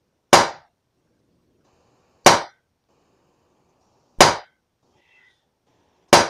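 BB gun fired four times, about two seconds apart, each shot a sharp crack.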